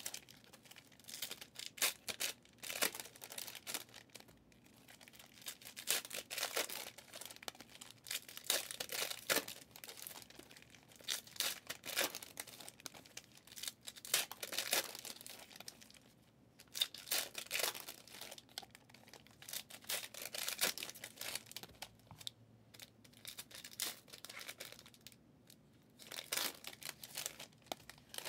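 Foil trading-card pack wrappers being torn open and crinkled in irregular short bursts.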